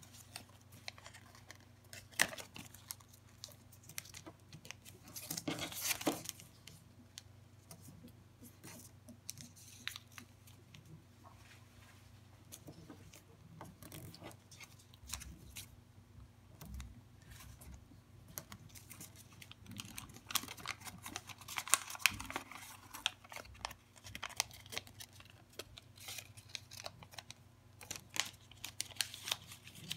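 A sheet of origami paper being folded and creased by hand on a wooden table: scattered crisp rustles and small taps, with louder stretches of rustling about five seconds in and again around twenty-two seconds in.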